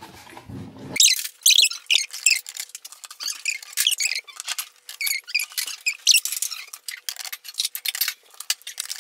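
Squeaky, chirping high-pitched chatter with rapid clicks and clatter, the sound of a fast-forwarded recording of people talking and moving about a kitchen. All low sound is missing from about a second in.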